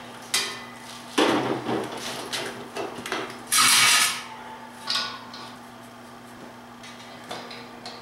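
Metal clinks and rattles of a propane heater's hose regulator fitting being handled and brought to the valve of a 20 lb propane tank, with a brief loud hiss about halfway through. A faint steady hum sits underneath.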